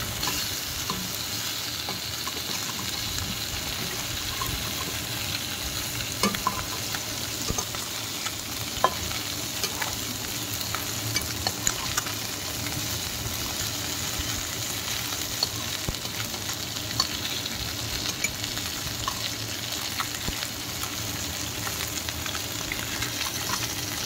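Small fish frying in hot oil in a kadai, sizzling steadily, with scattered clicks and scrapes of a spatula against the pan as the fish are turned over.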